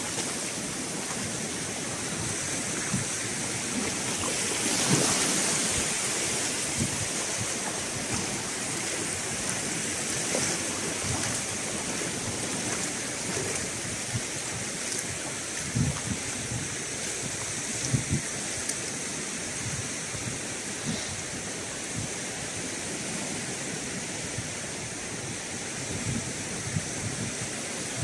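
Small waves and shallow sea water washing over a sandy beach: a steady hiss of surf. A few low thumps of wind buffet the microphone.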